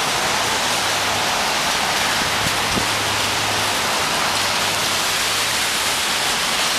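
Heavy rain falling, a steady dense hiss, with a faint low hum underneath.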